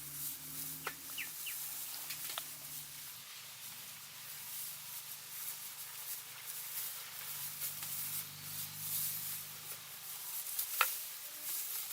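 Faint outdoor crackling and rustling made up of many small ticks, with a few short bird chirps in the first seconds and one sharper click near the end.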